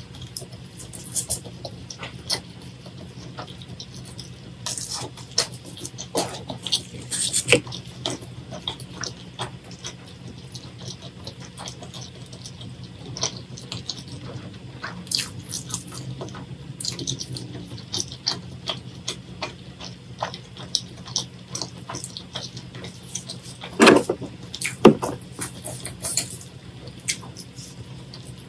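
Close-miked wet eating sounds: sticky clicks, smacks and squelches from chewing spicy-sauced seafood and from gloved hands handling sauce-coated scallops in their shells, over a steady low hum. Two louder knocks come near the end.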